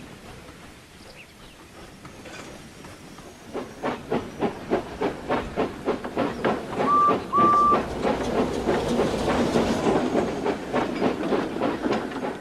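Steam locomotive sound effects. After a quiet start, exhaust chuffs begin about three and a half seconds in and run at roughly four a second. Two short whistle toots come about halfway through, and a rising steam hiss mixes with the chuffs until the sound cuts off.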